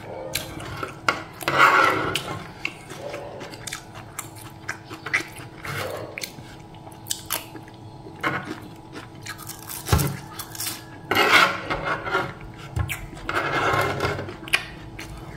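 Close-up eating sounds: a person chewing, with a spoon and fork clicking and scraping on a tray. A few louder stretches of chewing come about two seconds in and again near the end.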